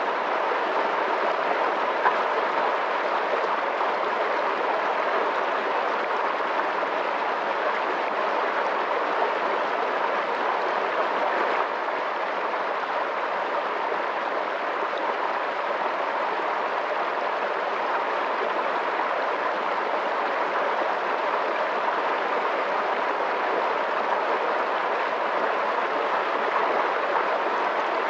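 Fast-flowing water rushing steadily and evenly, with no breaks or changes.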